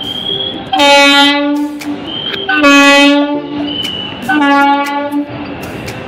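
Vande Bharat Express train horn sounding three blasts of about a second each, loud and at a steady pitch, with short gaps between them.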